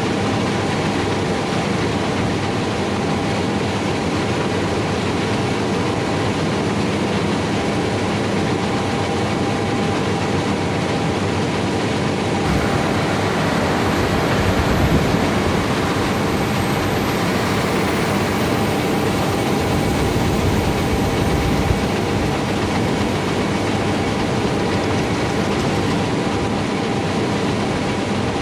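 Harvest machinery running steadily at close range: a dense, even mechanical rumble with a few steady hums through it.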